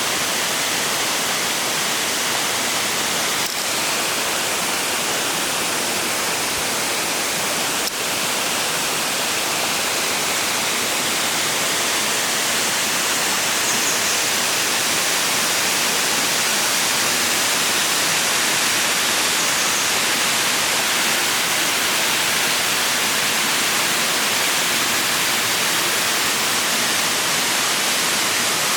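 Gugok Falls, a waterfall, pouring in a steady, even rush of falling water.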